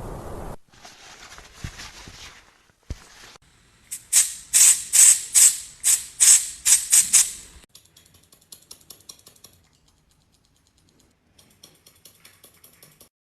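Hairdressing work on a doll's hair: scattered faint sounds, then about four seconds in a run of about eleven quick, loud rasping strokes, roughly three a second, followed by faint light ticking.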